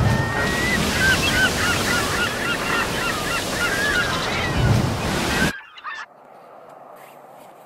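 A flock of geese honking, many short calls overlapping, over wind buffeting the microphone. About five and a half seconds in the sound cuts off suddenly, followed by a brief whoosh and then a faint steady hum.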